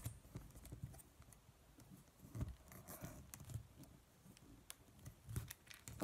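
Faint handling noise of a phone holder being screwed onto a tripod: scattered small clicks and low knocks, a little louder about two and a half seconds in and again near the end.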